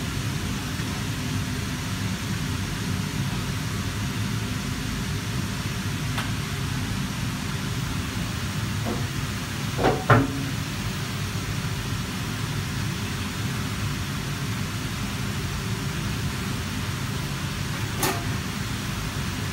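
Steady roaring background noise of a commercial kitchen gas range, broken by a few sharp metal knocks from pans being handled. The loudest is a double knock about halfway through, and a last one comes near the end.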